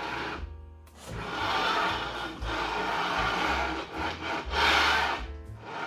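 Rough rubbing, scraping noise: one long stroke of about three seconds, then a shorter one.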